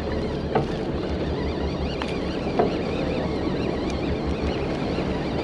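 Steady wind buffeting the microphone and water moving along a drifting boat's hull, over a low, pulsing rumble. A couple of faint knocks come through.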